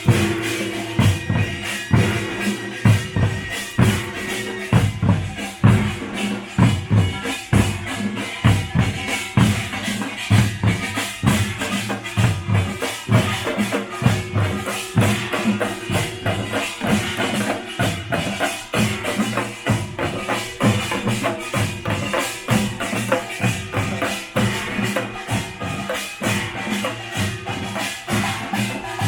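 Korean pungmul (nongak) folk percussion band playing: drums and small gongs beat a fast, steady rhythm without a break.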